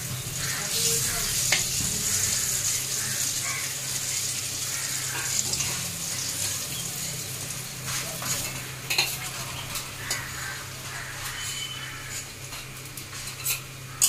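Oil sizzling in a metal wok as fried dhoka (lentil cakes) are lifted out one by one with a metal spatula, which scrapes and clicks against the pan now and then. The sizzle thins out in the second half as the wok empties.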